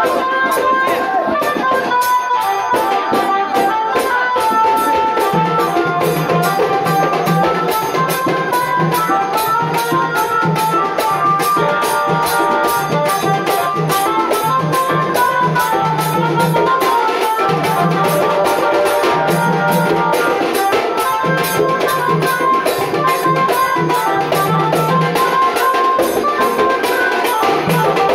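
Loud folk-style music with a fast, steady percussion beat and jingling shaker or tambourine under a melody, played over a DJ sound system. A pulsing bass part comes in about five seconds in.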